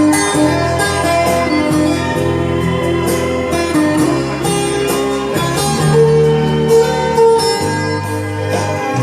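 Instrumental karaoke backing track of an enka song, a plucked-string guitar melody over sustained accompaniment and a steady beat, with no voice.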